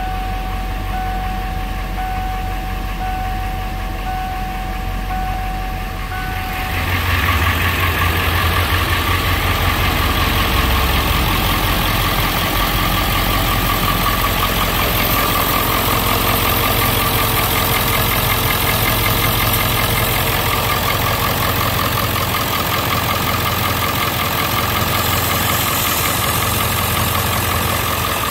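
Ford 7.3L Power Stroke turbo-diesel V8 idling. For about the first seven seconds it is muffled, with a steady high electronic tone over it. From then on it is louder and clearer, with a fast, even diesel clatter.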